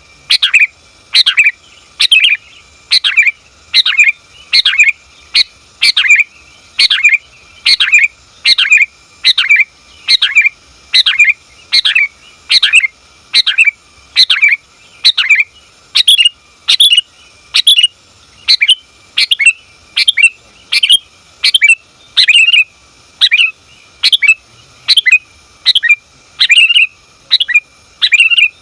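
Female sooty-headed bulbul calling, short sharp chirps repeated without a break at about three every two seconds. It is the call a female gives to draw a male to answer.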